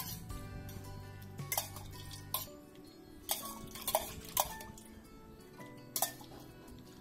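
A metal ladle and pot clinking against each other, about eight sharp clinks spread unevenly, with background music underneath.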